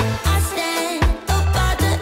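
Upbeat background pop music with a steady beat and a bass line.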